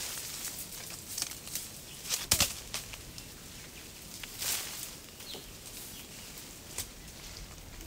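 Leafy branches rustling and shaking as someone climbs through a tree picking fruit, with scattered snaps and knocks of twigs, the sharpest a little over two seconds in.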